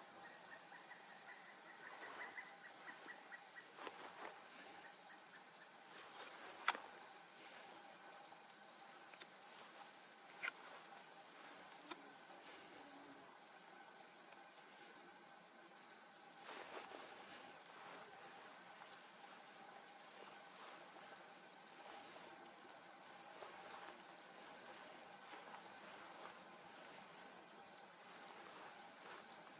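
Steady, high-pitched chorus of insects chirring, with one sharp click about seven seconds in.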